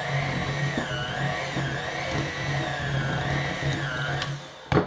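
Electric hand mixer running, its beaters working thick cookie dough; the motor's whine wavers up and down as the load changes. It switches off about four seconds in, followed by a single sharp clack.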